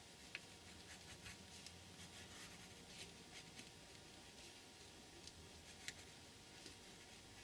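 Faint scratching of a pen drawing short strokes over washi tape and paper, with a couple of sharper ticks.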